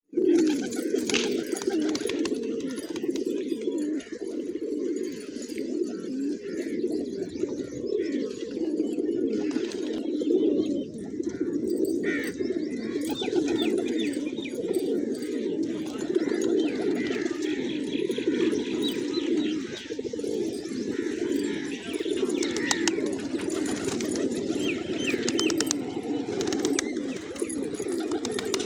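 A flock of pigeons cooing without pause, many low coos overlapping. Short higher chirps and clicks come through now and then, mostly in the second half.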